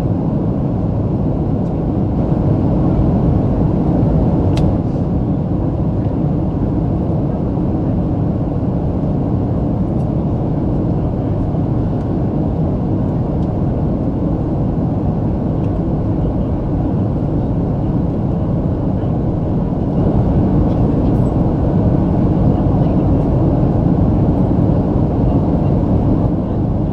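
Steady roar of airflow and jet engines heard inside the cabin of a Boeing 737 airliner in flight on its descent. The roar swells slightly about two-thirds of the way through.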